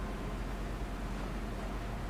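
Steady background hiss with a low hum underneath: room tone, with no distinct sound.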